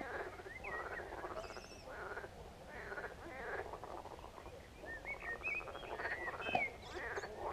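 A chorus of marsh frogs croaking, many rapid pulsed calls overlapping one another.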